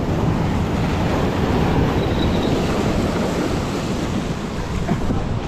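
Ocean surf breaking and washing in over a shore of rounded boulders, a steady rushing, with wind buffeting the microphone.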